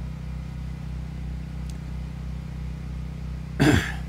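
A steady low hum with no speech, and a short breath near the end.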